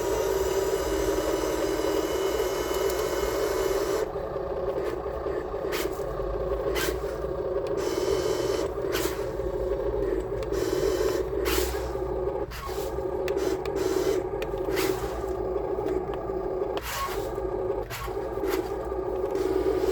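Upgraded Huina 1554 RC bulldozer's electric drive running with a steady whine as it pushes sand, with gritty scraping and scattered sharp clicks from the blade and tracks working the sand from about four seconds in.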